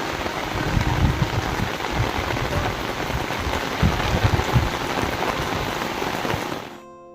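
Heavy rain falling steadily, with irregular low thuds among the patter; it cuts off suddenly near the end, where soft plucked-string music begins.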